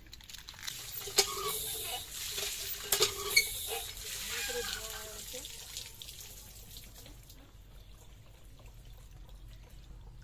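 Water pouring from a hand pump's spout and splashing through a plastic basket of cut katla fish being rinsed, with a few sharp clunks. The flow dies away about six and a half seconds in.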